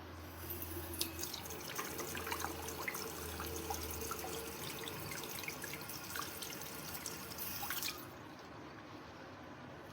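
Water from a waterfall-spout bathroom faucet running and splashing into the sink basin, with small dripping splashes through it. It cuts off abruptly about eight seconds in.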